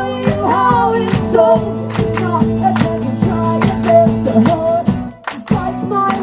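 Live acoustic music: strummed acoustic guitars with a sung melody over them, briefly dropping away about five seconds in before the strumming comes back.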